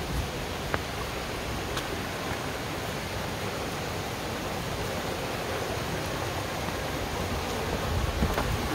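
Creek water running over rocks: a steady, even rushing hiss, with a sharp click about a second in.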